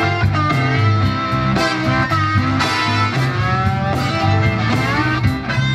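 Live rock band playing with electric guitars, bass and drums, at a steady beat with some bending guitar notes.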